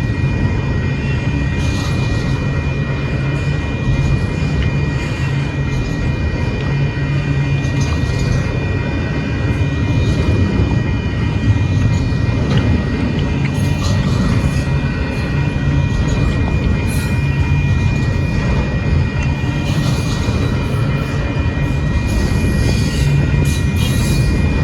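Union Pacific intermodal freight train rolling past: a steady heavy rumble of wheels on rail, with a thin steady high-pitched whine over it.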